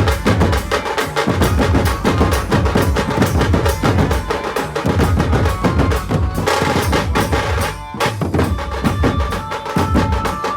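Loud drum-heavy music with fast, dense drumming over a strong bass beat. The music dips briefly about eight seconds in, then a held melody line comes in over the drums.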